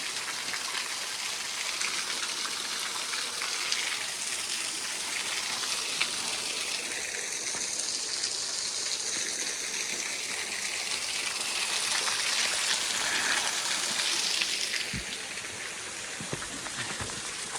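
Water of a small waterfall rushing and splashing, a steady hiss that swells a little past the middle, with a few soft thumps near the end.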